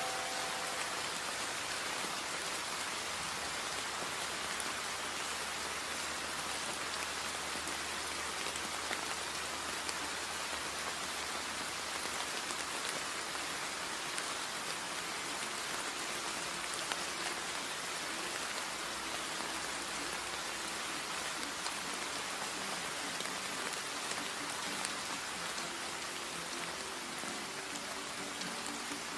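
Steady, even rainfall: a continuous wash of rain hitting surfaces, with faint sustained tones coming in near the end.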